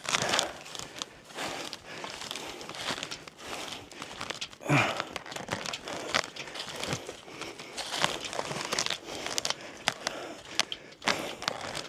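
Irregular crinkling and rustling with scattered crackles, from luggage being hauled by hand along a rough track, with one louder rustle about five seconds in.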